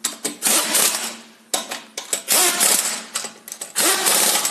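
Impact wrench tightening a car wheel's lug nuts in a series of short bursts of rapid hammering, about five in all, each spinning up with a brief rising whine.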